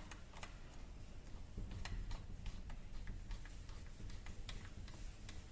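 Irregular light metallic clicks of a T-handle hex key turning and seating in a mounting screw, about two clicks a second.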